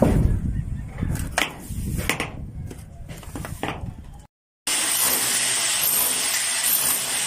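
Irregular knocks and clatter of footsteps on corrugated metal roofing, about five sharp hits over a low rumble. After a brief cut to silence, a steady, even noise.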